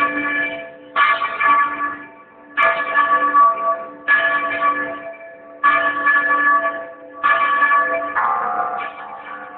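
A church bell rung by hand with a pull cord, about six strokes, one every second and a half or so. Each stroke rings out and fades before the next. Near the end, one stroke has a different pitch.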